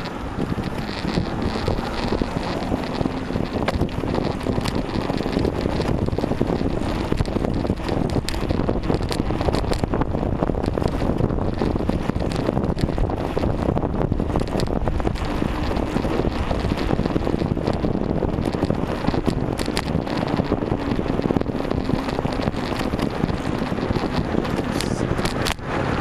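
Wind buffeting the microphone of a bicycle-mounted camera while riding, over steady road and tyre noise, with scattered small clicks and knocks throughout.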